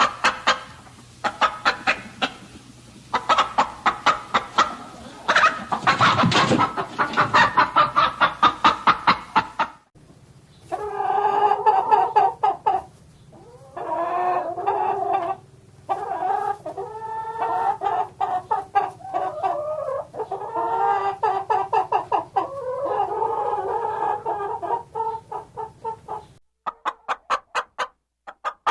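Chickens clucking: a dense run of rapid short clucks, then, after an abrupt change about ten seconds in, longer drawn-out pitched calls. Near the end, a run of short quick clucks.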